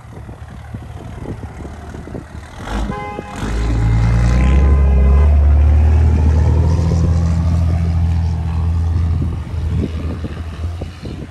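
A motor vehicle passing through a snowy intersection, its low engine rumble swelling about three seconds in and easing off near the end, with a brief steady whine near the start of the swell.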